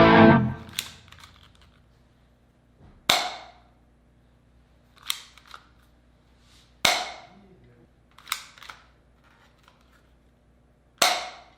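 Double Eagle M292 spring airsoft pistol, worked by hand: three loud, sharp snaps about four seconds apart, with quieter double clicks between them, the pistol being fired and re-cocked.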